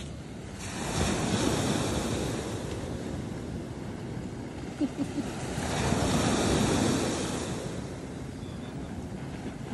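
Surf breaking on a sandy beach, with wind buffeting the microphone; the wash swells about a second in and again around six seconds. A few short clicks sound just before the middle.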